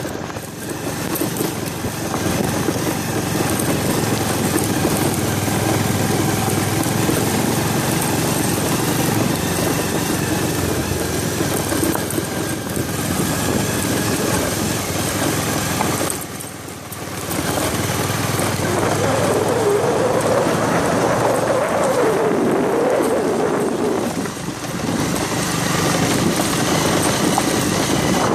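Motorcycle engine running under a steady rush of wind and road noise while riding over a rough dirt and gravel road. The sound dips briefly past the middle, then an engine note wavers up and down for a few seconds.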